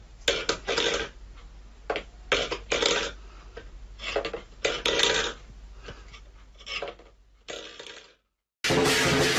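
Stainless steel pet food bowl knocking and rattling on a wooden floor as a cat paws at it, a string of irregular clatters and scrapes.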